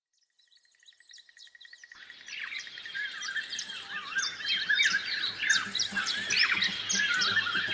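A dense chorus of many small birds chirping and twittering, fading in from silence and growing fuller over the first few seconds.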